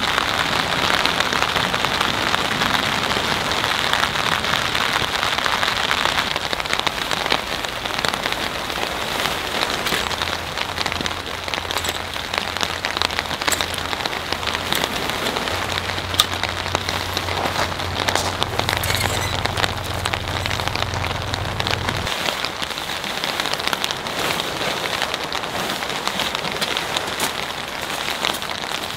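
Steady heavy rain falling on a surface, a continuous hiss dotted with many sharp individual drop impacts.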